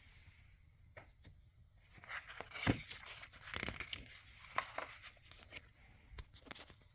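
Paper rustling and crinkling in short bursts with a few soft clicks: the pages of a picture book being handled and turned.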